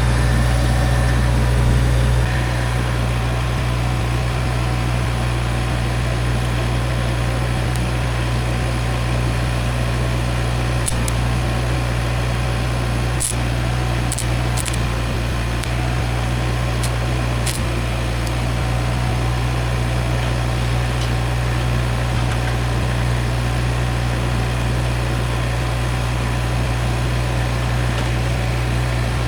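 Arc welding: a steady hiss and crackle over an engine running steadily at idle, with a few sharp ticks in the middle stretch.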